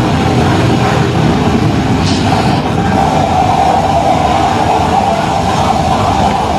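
Live harsh noise music played loud through a PA: a dense, unbroken wall of distorted noise, with a steady mid-pitched drone coming up about three seconds in.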